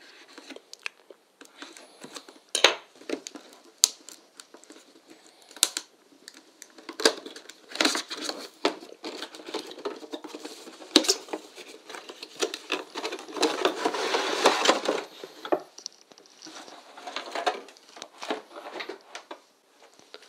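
Handling a cardboard headset box: a knife cutting and slitting the packaging, then the box being opened and a foam tray pulled out, heard as a run of sharp clicks and taps and rustling scrapes. The longest, densest scraping comes about two-thirds of the way through.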